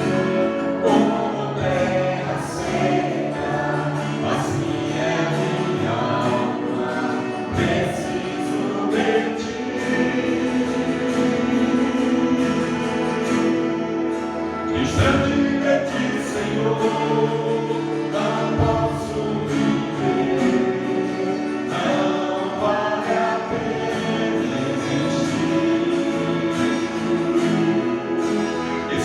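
Christian worship song (louvor) being sung, with voices over a sustained instrumental accompaniment.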